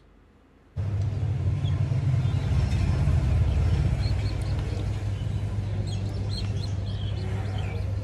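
A steady low hum starts about a second in, with faint, short, high cheeps from a young pigeon chick in the second half.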